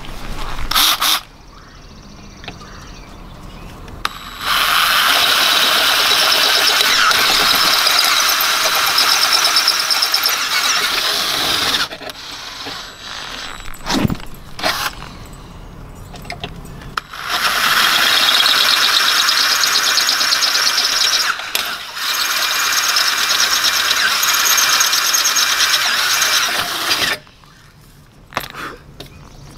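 Cordless drill with a 1/4-inch bit drilling out the threads of the two license-plate bolt holes, making a high squeal. It runs twice, about seven seconds and then about ten seconds, once for each hole.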